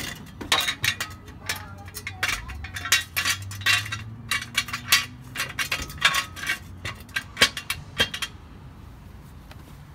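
Steel jack stand clinking and clanking against metal and concrete as it is set under the jacked-up car, a rapid irregular series of sharp clinks that stops about eight seconds in.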